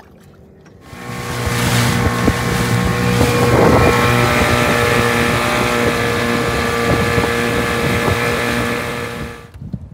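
Mercury 7.5 hp two-stroke outboard running steadily under way, with water rushing past the hull and wind on the microphone. It comes in about a second in and dies away near the end.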